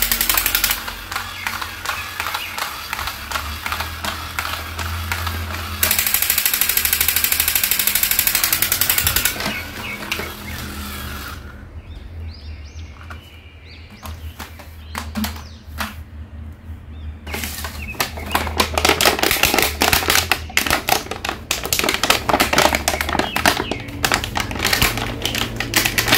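Battery-operated crawling soldier toys with plastic rifles running: a rapid clattering rattle of gunfire sound effects and gear clicks, over music. It drops to a quieter stretch about halfway through, then the fast rattle comes back.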